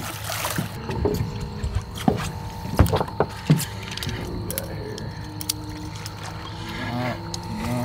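A released black drum splashes into the water, then several sharp knocks and clicks of gear being handled on the boat, over a steady hum. A faint voice comes in near the end.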